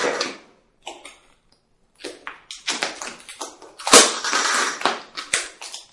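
Vinyl wrap film being handled on a motorcycle tail section: irregular crackling and rustling as the film is pulled, lifted and smoothed by hand, with a louder sharp crackle about four seconds in.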